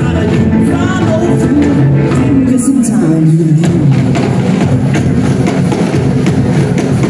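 A rock-and-roll band playing live and amplified: upright bass, drum kit, electric guitars and a keyboard, with a lead vocal.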